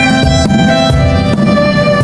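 Violin playing a melody over a loud backing track with a heavy, pulsing bass beat, recorded on a phone's microphone.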